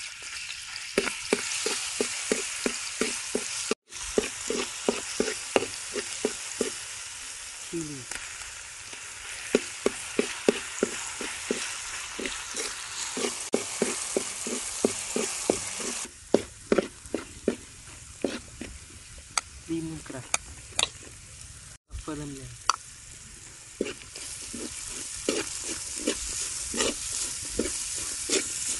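Garlic sizzling in hot cooking oil, stirred with a spatula that scrapes and knocks against the pan two or three times a second.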